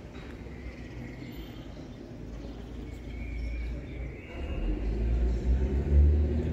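Low, uneven rumble that grows louder from about two seconds in.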